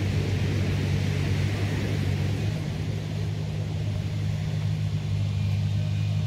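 Excavator's diesel engine running steadily as a low hum while it pulls a wrecked boat on a taut strop, with the hiss of surf breaking on the beach over it.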